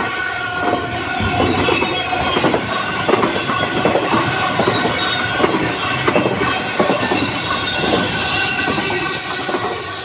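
Container freight train's wagons rolling past at close range: a steady rumble of steel wheels on the rails, with repeated clicks over the rail joints and a thin, steady wheel squeal above it.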